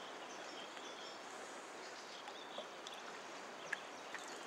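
Steady rush of a wide, fast-flowing river's current, with a few faint high chirps and a single sharp click near the end.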